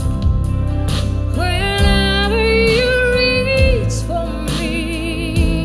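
A woman singing long held notes with vibrato into a microphone, over a live band backing with a steady bass. One note climbs in steps and is held for about two seconds in the middle; another follows near the end.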